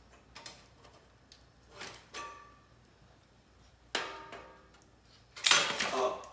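Metal clanks that ring briefly, from a thick steel griddle plate and metal utensils knocking together. There are a few separate knocks, and near the end comes a louder, longer clatter.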